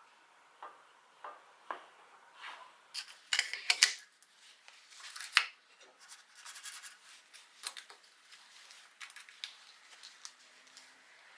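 Handling sounds: a string of light clicks and knocks as a wood piece and a skate-wheel hold-down jig are set against the fence on the metal table-saw top, with the saw not running. The loudest knocks come a few seconds in.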